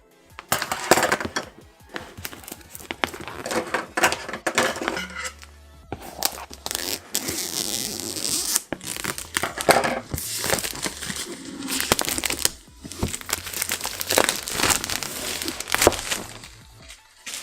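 Plastic and cardboard packaging crinkling and rustling in irregular bursts as it is unwrapped by hand, with background music.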